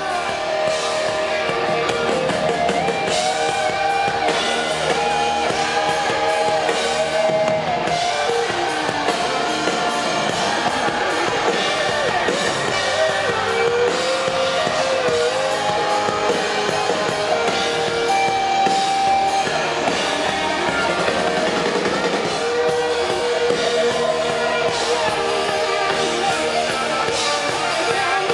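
Live rock band playing: electric guitars and drum kit, with a male lead vocal sung over them.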